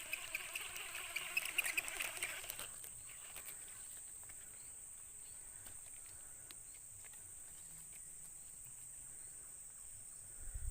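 Crickets or other insects droning steadily on one high pitch, faint, with rustling and a few clicks for the first two or three seconds and a dull thump near the end.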